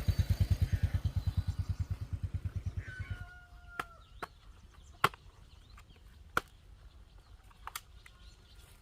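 Motorbike engine running with an even putt-putt of about ten beats a second, fading out about three seconds in as it moves off. Afterwards come a few sharp isolated clicks and faint short chirps.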